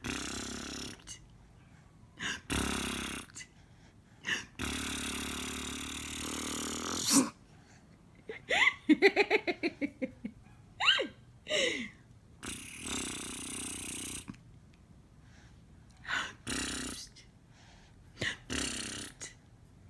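Playful mouth noises: breathy blowing bursts like lip raspberries, a quick staccato run of voiced sounds about nine seconds in, then two falling squeals, followed by more breathy bursts.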